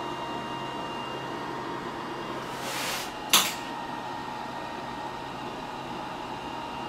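TIG welding at a steel bench: a steady hum with a faint high tone that stops about a second in, then a short hiss and a single sharp snap about three seconds in.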